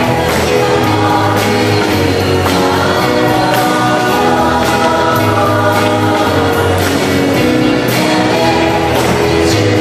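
Church music: a choir singing with instrumental accompaniment, held notes over a steady bass and a regular beat.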